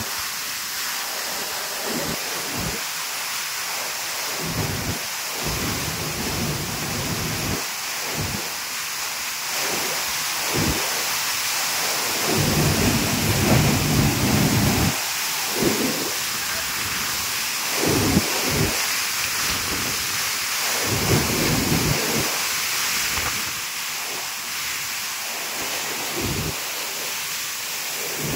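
Tall waterfall (Tiger Falls) pouring into its plunge pool: a steady rush of falling water, loudest around the middle, with irregular low gusts of wind and spray buffeting the microphone.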